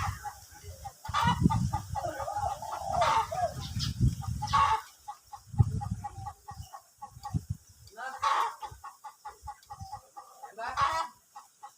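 Spotted dove cooing in short repeated phrases, with domestic chickens clucking, plus bursts of low rumble in the first half.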